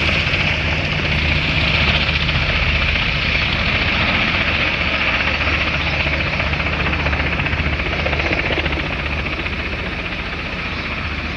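Sikorsky CH-148 Cyclone helicopter flying away: a steady low rotor beat under the whine of its twin turboshaft engines, fading a little near the end as it pulls away.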